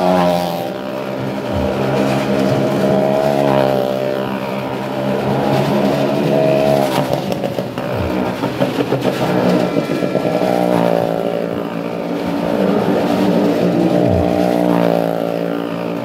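Motorcycle engine revving as it circles the vertical wooden wall of a well-of-death show, its note swelling and fading every few seconds with each lap.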